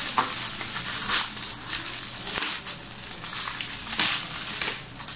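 Clear plastic wrapping crinkling and crackling as hands twist and pull at it to tear it open by hand, in irregular bursts with louder crackles about a second in and again about four seconds in.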